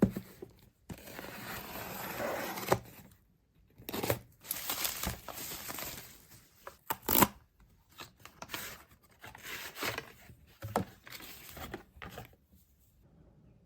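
Packaging being torn open and crinkled by hand, in several rustling stretches with a few sharp clicks between them.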